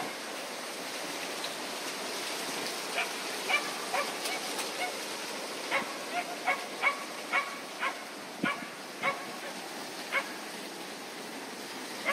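A dog barking repeatedly, short sharp barks at irregular intervals starting about three seconds in, over a steady background hiss.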